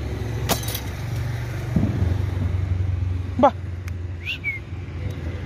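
Steady low rumble with a sharp knock about half a second in. A trapped puppy gives two short whimpers, one rising quickly about three and a half seconds in and a higher, falling one just after four seconds.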